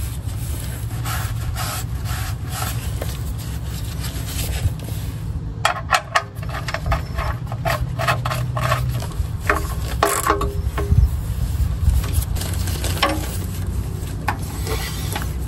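Gloved hand gripping and twisting a spin-on oil filter loose from under the vehicle: rubbing and scraping, with a quick run of rasping clicks through the middle. A steady low hum runs underneath.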